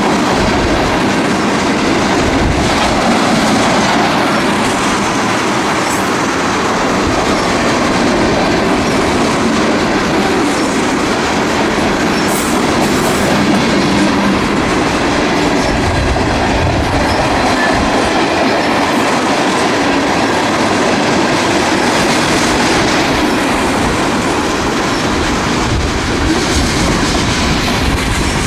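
Freight train cars rolling past, a steady loud noise of steel wheels running on the rails.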